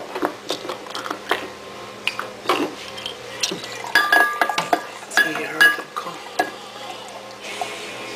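Glassware and kitchen things clicking and knocking as a glass vodka bottle is handled and poured into a blender jar of orange juice, with a few ringing clinks about four to five seconds in.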